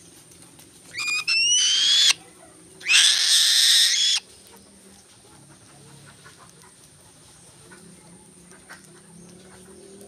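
A young pet raptor (hawk) calls twice. About a second in comes a rising, whistled squeal, and then, about three seconds in, a harsh, hissing screech of just over a second.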